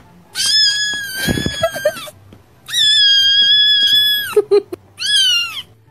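A kitten's high-pitched screaming meows: two long held cries of nearly two seconds each, then a short one near the end.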